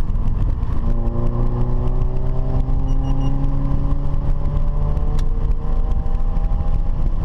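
Car engine accelerating, its pitch climbing steadily for about four seconds, then dropping with a click at a gear change and climbing again, over a heavy low rumble.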